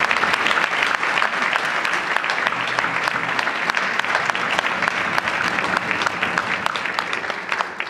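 Audience applauding: dense, steady clapping that begins to die away at the very end.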